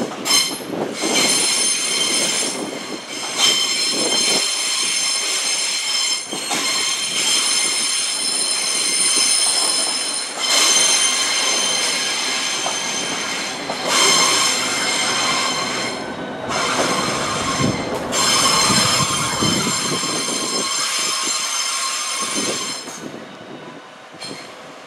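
Southeastern Class 395 Javelin electric train running into the platform, with a high-pitched squeal from its wheels that drops out and returns several times over a rumble, then dies away near the end as the train stops.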